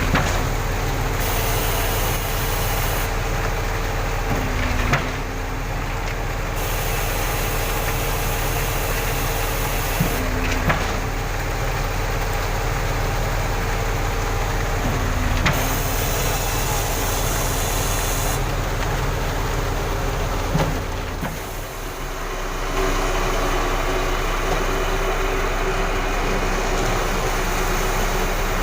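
Concrete pump truck's diesel engine running steadily under load while it pumps concrete, with a sharp knock about every five seconds. The engine note drops briefly a little past two-thirds of the way through, then picks up again.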